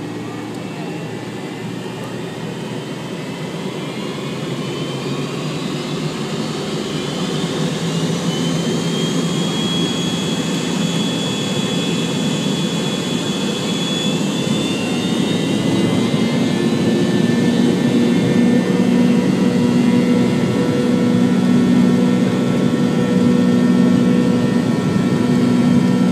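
Jet airliner's engines heard from inside the cabin over the wing, spooling up for takeoff: a rising whine over a steady roar that grows louder throughout.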